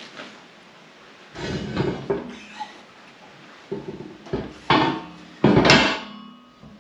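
Heavy iron swage block being set down into a welded steel angle-iron stand: metal scraping and several knocks as it is shifted into place. The loudest clank comes about five and a half seconds in and rings briefly.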